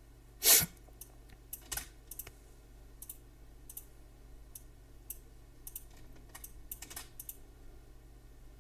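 Computer keyboard keys clicking: scattered single keystrokes, the loudest about half a second in, stopping about seven seconds in.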